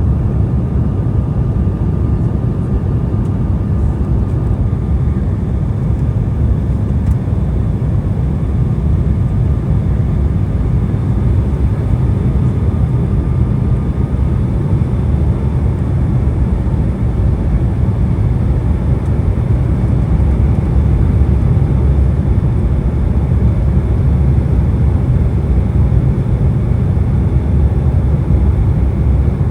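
Cabin noise inside an Embraer E175 jet airliner: a steady, dense rumble of its twin jet engines and the airflow past the fuselage. A faint high whine sits over it during the first half, then fades out.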